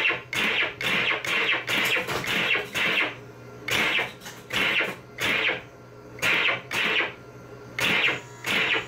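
Rapid series of rifle shots from an electromechanical shooting-gallery game: short, sharp metallic clacks of the rifle's recoil coil, fired in two quick runs with a short pause between them. The coil lacks its rubber damping washers.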